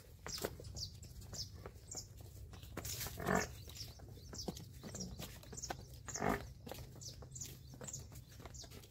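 Water buffalo being led on a rope, with two short louder sounds from the animal about three and six seconds in. Small birds give quick, high, falling chirps throughout.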